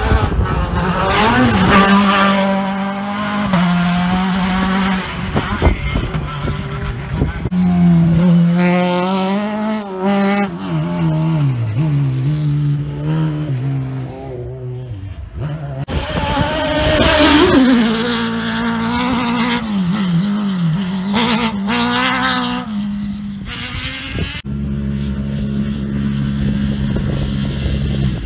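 Rally cars at full throttle, one after another: the engine note climbs and drops sharply with each gear change. The sound comes in several separate loud passes.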